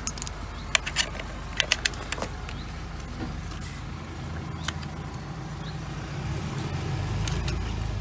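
Stainless steel quick-release pressure-washer fittings clinking and clicking as they are handled, a few sharp metallic clinks in the first couple of seconds. A steady low engine hum runs underneath and swells slightly near the end.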